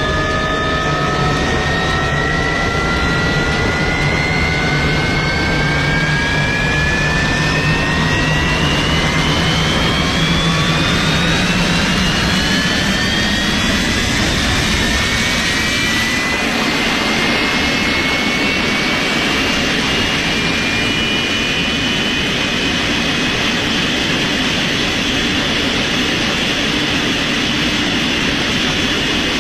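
Small jet engine running loudly with a steady rushing noise, its whine rising slowly through the first half as it spools up, then holding steady.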